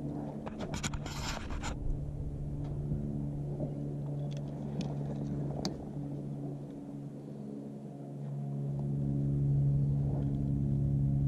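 Handling noise of gear in a kayak cockpit as a fish scale is put away: a short, dense rustle about a second in, then scattered small clicks and scrapes. A steady low hum runs under it throughout.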